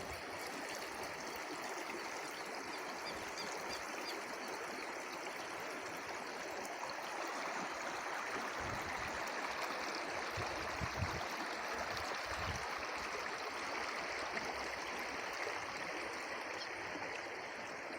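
Running water flowing steadily, like a stream.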